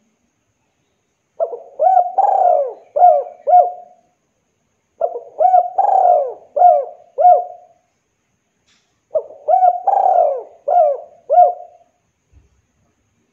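Spotted dove (Javan derkuku) cooing: three song phrases about four seconds apart. Each is a quick run of coos with one longer note in the middle and ends in two short coos.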